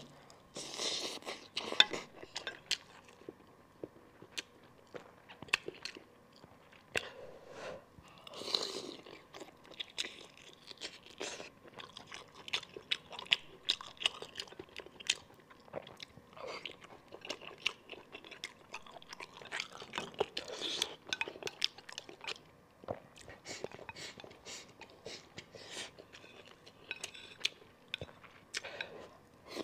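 A person chewing and biting spicy braised monkfish offal with rice, close to the microphone: wet mouth sounds and irregular small clicks of chewing.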